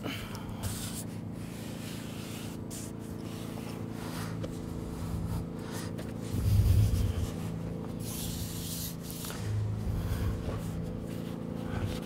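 A flexible pond liner rubbed and pressed by hand against a waterfall filter's faceplate, with two dull low thuds from handling, about six and a half and nine and a half seconds in, over a steady low hum.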